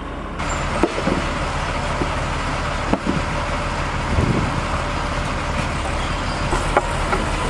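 Steady running-engine noise of ground equipment, with a few short knocks and clicks scattered through it.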